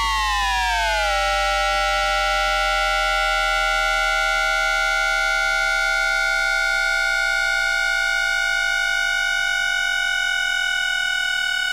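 Hitachi two-level IGBT VVVF inverter of a Tokyu 5050 series train, picked up electrically by an induction-coil 'moha radio' rather than a microphone: an electronic whine with many overtones. Its asynchronous-mode tone falls in pitch, and about a second in it switches to a steady tone that rises very slightly.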